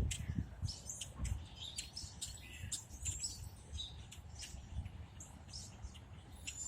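Small birds chirping, many short high calls scattered throughout, over a low rumble.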